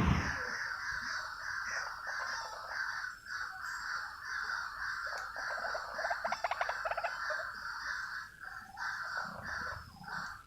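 White-breasted waterhen calling: a continuous run of repeated 'kru-ak' notes, about three a second, with a quicker rattling stretch in the middle. There is a sharp thump right at the start.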